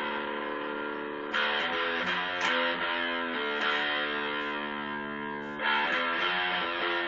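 Single-cutaway solid-body electric guitar strummed, chords struck and left to ring, a new chord every one to three seconds.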